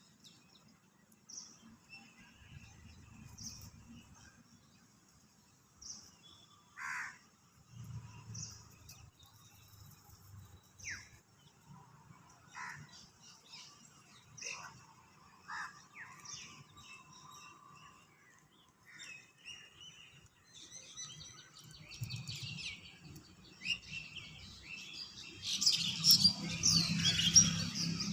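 Small birds chirping, at first in scattered single calls a second or so apart, then near the end many birds calling at once in a louder, busy chatter.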